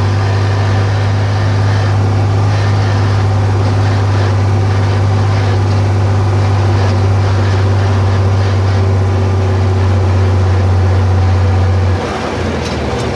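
John Deere 4020 tractor's six-cylinder engine running steadily at road speed under load. Near the end its steady low note drops away and the sound gets quieter.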